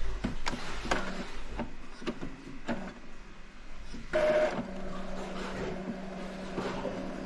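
Epson L5190 inkjet printer running its power-on initialisation: a series of mechanical clicks from its paper and print-head mechanism, then about four seconds in a motor starts with a brief higher whine and settles into a steady hum.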